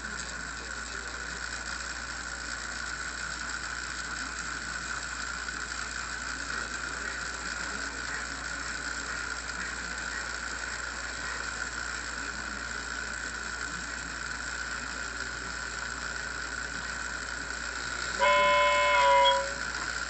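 Lionel O-gauge 4-8-4 Northern model steam locomotive's onboard sound system standing at idle: a steady steam hiss over a low hum. About 18 seconds in, its steam whistle blows once, for about a second, several tones sounding together and dipping slightly as it ends.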